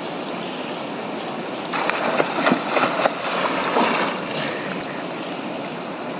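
River water rushing steadily over rocks, with a couple of seconds of splashing about two seconds in as a swimmer surfaces and thrashes in the water.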